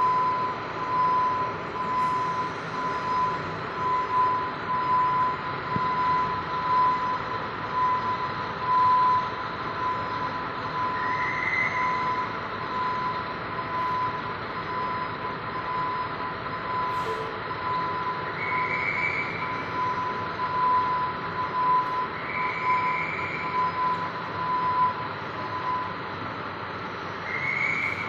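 Volksbus Ayco Orion coach's diesel engine running as the bus reverses out of its bay. Its reversing alarm beeps steadily and stops near the end. A few short high squeals come through the engine noise.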